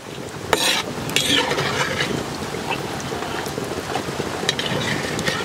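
Hot oil sizzling in the pan as fried cashews are scooped out with a perforated metal spoon. A few sharp clicks and scrapes of the spoon against the pan and the clay bowl come through the sizzle, which swells about a second in.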